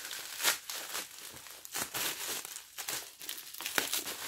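Packaging being crinkled and rustled by hand while a perfume box is unwrapped: irregular crackles and rustles, with no steady rhythm.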